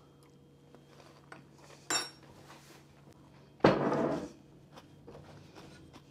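Kitchen utensils and dishes knocking together: a ringing clink about two seconds in and a louder, half-second clatter a little past the middle, with a few light taps between.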